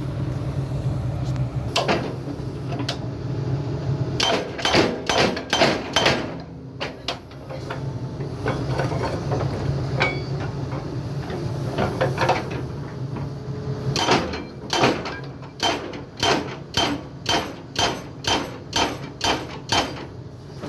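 Excavator-mounted hydraulic rock breaker hammering in runs of sharp blows over the steady hum of the excavator's engine. Near the end the blows come steadily, about two a second.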